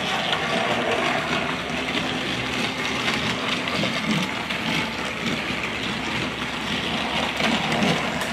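Battery-powered TrackMaster-style toy engines, Thomas and Percy, running on plastic track: a steady whir of small electric motors with the wheels rattling over the track.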